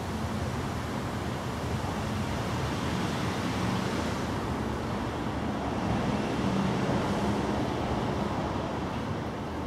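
Steady outdoor background noise of distant road traffic, a little louder in the middle and easing off near the end.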